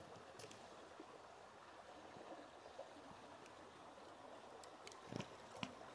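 Near silence with the faint, steady rush of a stream, and a couple of light clicks about five seconds in.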